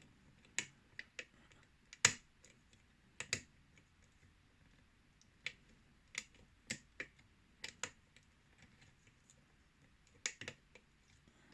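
Lock pick and tension tool working a six-pin Yale-style pin tumbler lock: scattered, irregular sharp clicks as the pins are worked, the loudest about two seconds in.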